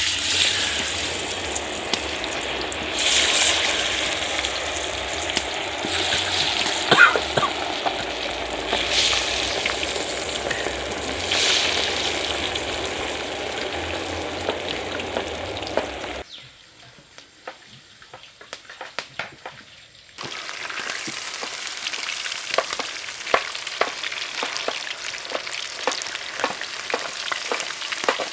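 Food frying in hot oil, a steady sizzle with small ticks and pops. The sizzle drops away about 16 seconds in and starts again about four seconds later.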